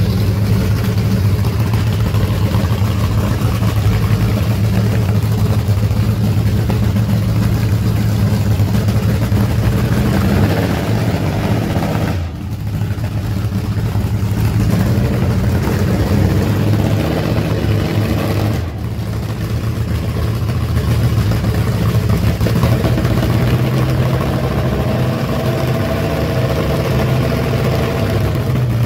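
Drag racing car engine run up in a pit warm-up, running loud and steady with two brief dips in level about twelve and nineteen seconds in.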